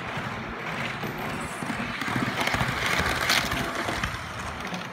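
HO-scale model freight train running by, its metal wagon wheels clattering steadily over the track and rail joints. The clatter grows louder about two seconds in and eases again near the end.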